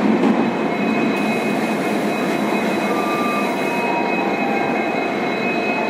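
Express train's coaches and rear luggage, brake and generator car rolling past and pulling away, a steady rumble and hiss of wheels on rail with faint high whines over it.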